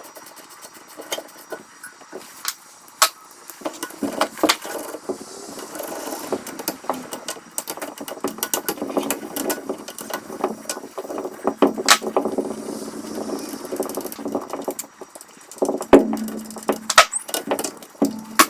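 Hand tools working on an air compressor's cylinder head: irregular metal clicks, clinks and knocks as the head is unbolted to check for a blown head gasket, with a few louder knocks near the end.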